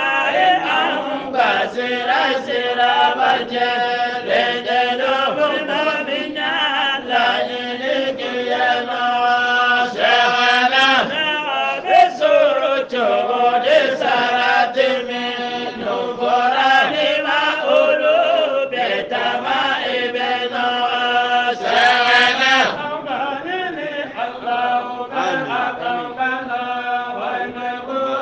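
Voice chanting a kassida, an Islamic devotional sung poem, in a continuous melodic line with long held notes.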